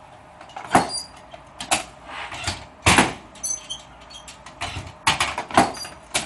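Several sharp knocks and clunks, some with a brief metallic rattle, from a chiropractic treatment table as the patient shifts into position on it.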